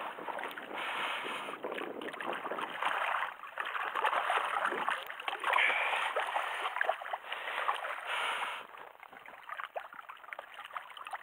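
Water splashing and sloshing as a hooked itou (Sakhalin taimen) thrashes at the surface in the shallows beside the landing net. The splashing eases off about three-quarters of the way in.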